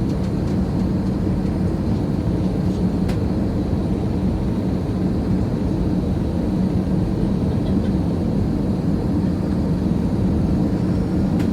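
Steady drone of an airplane in flight: engine and rushing air noise, low-pitched and unchanging.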